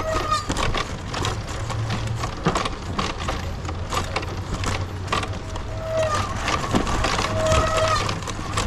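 Talaria electric dirt bike riding over roots and dirt on a forest trail: frequent knocks and clatters from the bike jolting over the roots over a steady low rumble, with the electric motor's thin whine coming in briefly at the start and twice more in the second half.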